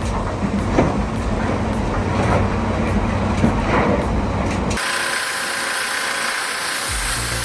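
Heavy diesel machinery running with a deep rumble and several sharp clanks. About five seconds in the sound cuts abruptly to a thinner hiss, and a low steady engine hum comes in near the end.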